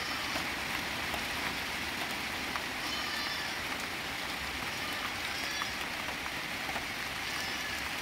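Steady, even outdoor hiss like light rain or wind in palm fronds, with faint high chirps twice, about three and five and a half seconds in.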